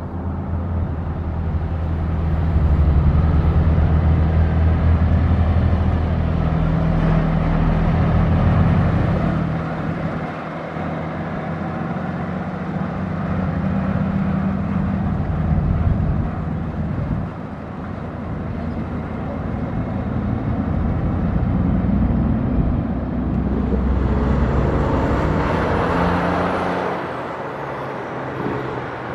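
Big diesel trucks running close by: a deep, steady engine drone that swells and eases. Near the end a louder rush of noise rises and fades.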